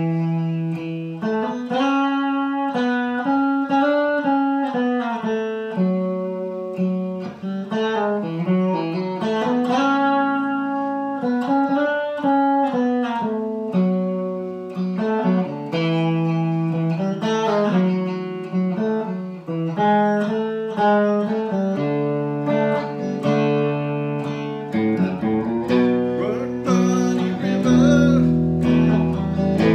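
Stratocaster-style electric guitar played plugged in, with picked chords changing every second or two. The playing grows fuller and lower near the end.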